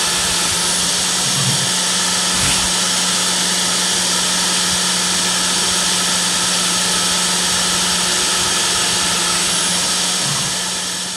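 CNC milling spindle with a fine engraving bit cutting the copper layer of a copper-clad textolite circuit board: a steady high whine and cutting hiss over a low hum, starting to fade near the end.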